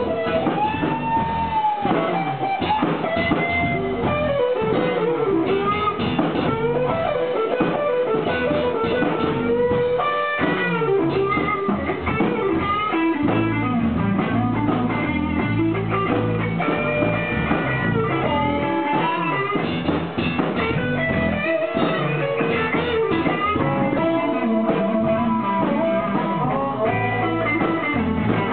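Live blues band playing an instrumental passage: electric guitar with bending notes over bass guitar and a drum kit.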